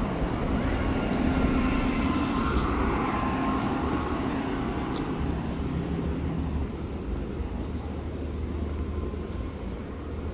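Steady rumble of motor traffic, with one vehicle passing in the first few seconds, its engine pitch falling slightly as it goes by.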